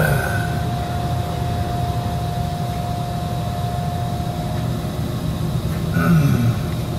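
Steady low machinery hum and rumble with a thin, steady whine above it, the background of a running machine shop. A short bump about six seconds in, with a brief low sound falling in pitch.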